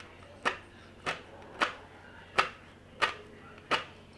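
Tweezers plucking hairs from a lace wig's hairline: six sharp clicks at an uneven pace, about one every two-thirds of a second.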